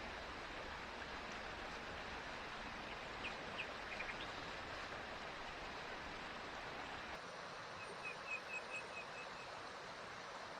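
Forest stream flowing steadily, with a few bird chirps about three to four seconds in and a quick run of about eight short bird chirps near the end.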